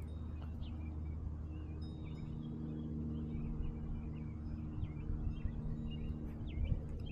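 Steady low mechanical hum with scattered short, high bird chirps above it.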